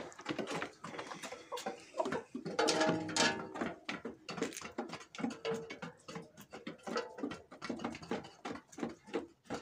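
Hens pecking feed out of a metal tray: a busy run of quick, irregular clicks and taps. One hen gives a drawn-out call about two and a half seconds in.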